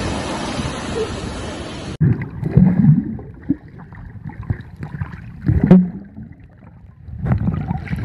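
Sea surf washing and hissing at the shoreline. About two seconds in it gives way to the muffled sound of a camera held underwater: gurgling and bubbling with dull knocks from a swimmer moving, loudest twice, before splashing near the end as the camera nears the surface.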